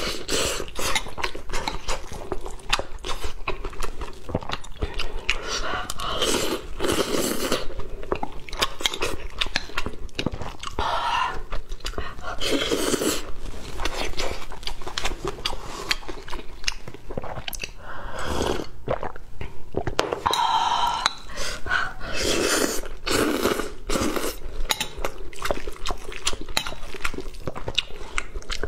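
Close-miked chewing of soft rice with tomato and scrambled egg: wet mouth sounds and lip smacks with many irregular small clicks, going on without a break.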